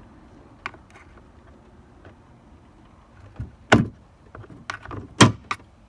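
Sharp plastic-and-metal clicks and knocks of a screwdriver prying the small black plastic retaining clip off a VW Caddy's tailgate lock. The clicks come irregularly, one faint one followed by two loud snaps, the second of them the loudest, a little after halfway and near the end, as the clip pops off.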